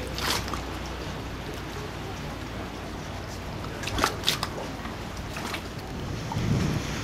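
Water sloshing and trickling around a boat, with a few sharp knocks, two of them close together about four seconds in.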